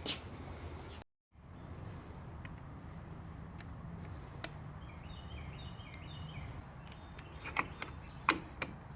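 A few sharp clicks and knocks of parts being handled, three close together near the end, over a faint steady low hum, with a few faint chirps in the middle.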